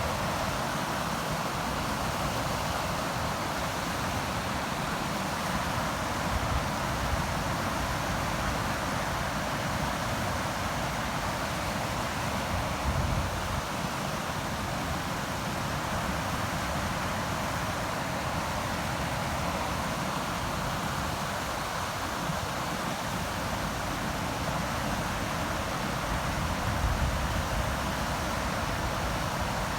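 River water rushing by in a steady, unbroken hiss, with an uneven low rumble underneath from wind buffeting the microphone.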